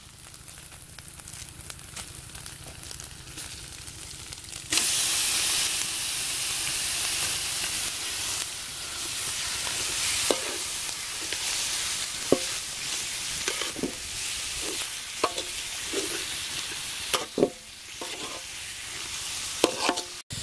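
Chopped duck pieces frying in a hot wok of chili-spice paste: a quiet sizzle jumps suddenly to a loud, steady sizzle about five seconds in as the meat goes in. A metal spatula scrapes and clinks against the wok as the meat is stirred.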